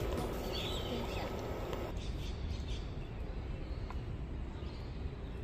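Outdoor background noise with a steady low rumble and a faint bird call about half a second in.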